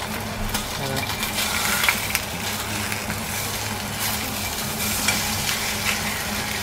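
Flour-dusted pork loin slices sizzling in oil in a frying pan, with light clicks and scrapes of wooden chopsticks as the slices are turned over.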